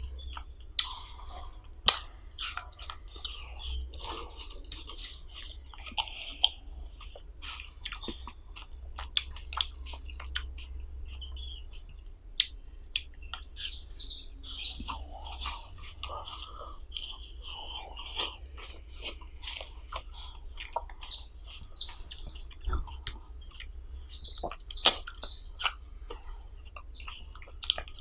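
Close-miked mouth sounds of eating an ice lolly: wet chewing and biting, with many short sharp clicks throughout.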